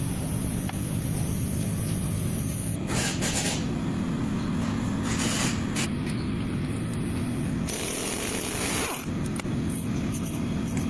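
A car driving, with a steady low road rumble and several short hissing noises over it.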